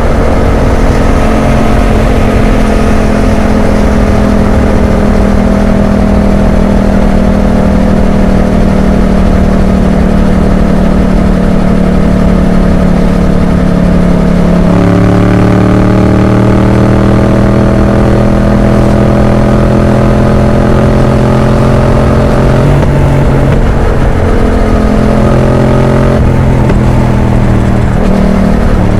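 Yamaha MT-07's parallel-twin engine through an Arrow exhaust, ridden in traffic. The engine note sinks slowly for the first half, shifts suddenly about halfway, then climbs gently, with more changes in note near the end.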